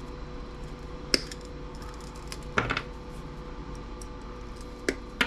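A few sharp clicks and a short clatter of small hard parts being handled and set down on a workbench while a TV is stripped for scrap, over a steady electrical hum.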